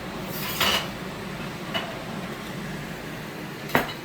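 A dish and cookware clattering as a plate is taken out of the oven: a short scraping rattle about half a second in, then a sharp clink near the end.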